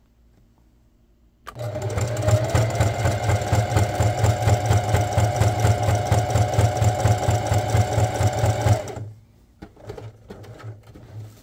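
Domestic sewing machine stitching along the edge of an embroidered crest on a jersey. After a short quiet moment it starts, runs at a steady rapid clatter with a faint motor whine for about seven seconds, and stops.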